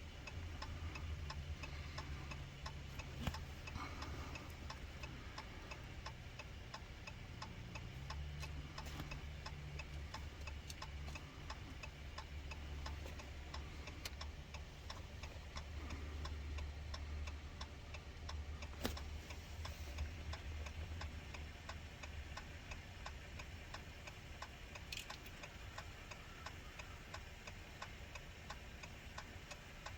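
2018 Dodge Ram's hazard flashers ticking steadily and evenly inside the cab, with a low hum underneath that rises and falls.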